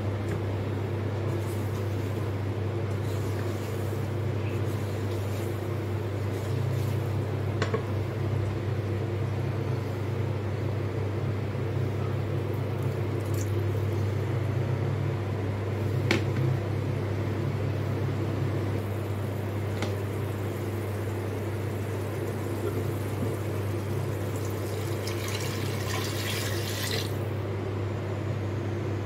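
Water poured from a glass jug into a metal cooking pot, over a steady low electrical hum. A few sharp knocks of a wooden spoon against the pot are heard along the way.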